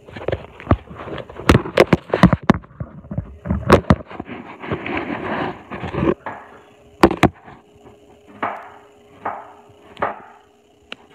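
Irregular knocks, taps and rustling from handling at a kitchen counter, dense in the first few seconds, then two sharp clicks about seven seconds in and a few softer swishes.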